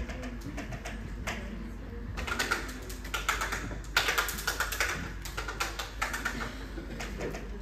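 Many small hand-percussion instruments jingling and clicking at once, shaken unevenly by a roomful of people, with the clatter coming in irregular bursts.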